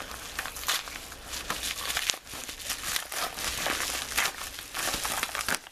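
Packaging being crinkled and torn open by hand: a dense, irregular run of crackles and snaps that stops abruptly near the end.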